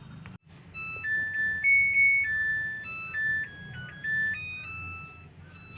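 A washing machine's electronic end-of-cycle melody: a tune of plain beep-tones stepping from note to note, signalling that the wash programme has finished.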